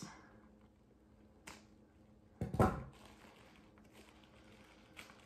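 Quiet handling noises from a plant's plastic-wrapped root ball being turned in the hands: a faint click about a second and a half in, a brief louder knock-like noise about two and a half seconds in, and another faint click near the end.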